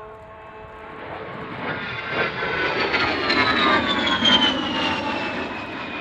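Fairchild Republic A-10 Thunderbolt II's two TF34 turbofan engines as the jet makes a pass. The sound swells to its loudest about four seconds in, with a high whine that falls in pitch as the aircraft goes by.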